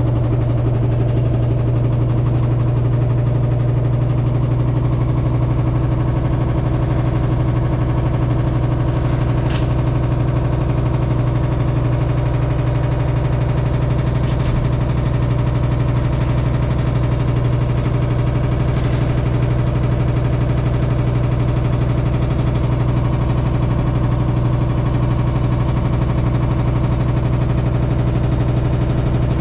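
Hitachi SF-150TCV washing machine in its spin cycle, running with a loud, steady drone and rattle. The noise is abnormal: the owner suspects the drum's shaft is off-centre or not tightened, so the tub wobbles as it spins.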